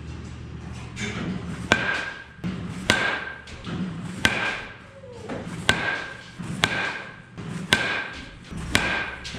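Composite baseball bat (2021 DeMarini CF drop 10) striking baseballs: a sharp crack with a short metallic-sounding ring on each hit, about seven hits roughly a second apart.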